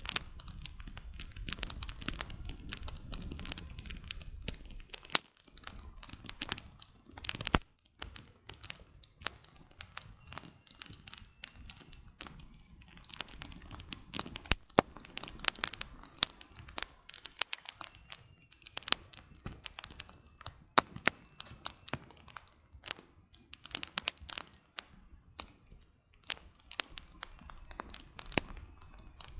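Wood campfire burning, the firewood crackling and popping in dense, irregular snaps. A soft low rumble sits under the first five seconds or so.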